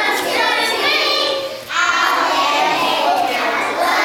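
Group of young children singing together, with a brief break in the singing a little under two seconds in.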